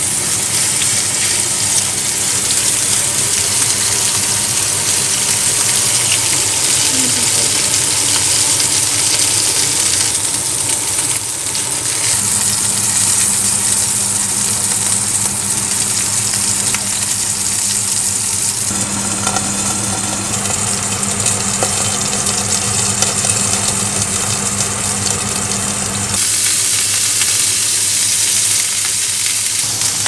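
Ribeye steak searing in a hot skillet, the fat and juices sizzling loudly and steadily.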